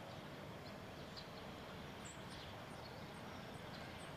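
Faint outdoor ambience: a steady low hiss with a small bird chirping, short high chirps repeating about four times a second from about halfway in.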